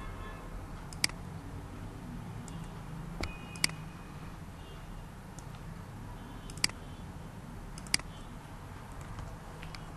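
Computer mouse clicks, about four sharp single clicks spread a second or more apart, over a steady low hum.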